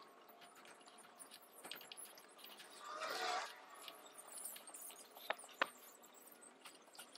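Small chisel scraping dried glue off a wooden chair-leg joint: faint, scratchy strokes, with one longer, louder scrape about three seconds in and two sharp ticks a couple of seconds later.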